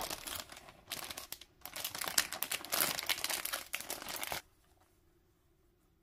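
Clear plastic shrink-wrap packaging crinkling as it is handled, a dense run of crackles that stops abruptly about four and a half seconds in.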